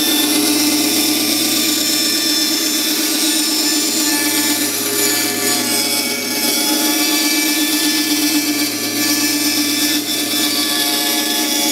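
Vevor 10-inch bandsaw running with a steady hum while its 3/8-inch blade cuts a curve in a piece of flooring.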